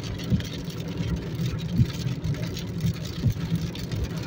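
Road noise inside a moving car on a wet highway: a steady low rumble of engine and tyres on wet asphalt. The windscreen wipers sweep with a soft thump about every one and a half seconds.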